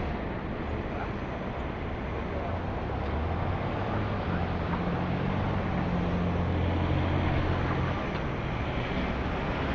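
Street traffic: a motor vehicle's engine hum that swells in the middle and fades again, over a steady hiss of traffic noise.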